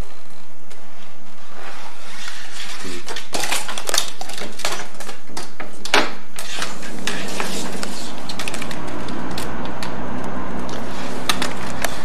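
Hard objects clattering: a run of sharp, irregular clicks and knocks, thickest between about three and seven seconds in, fading to scattered clicks as a low steady hum comes in after about eight seconds.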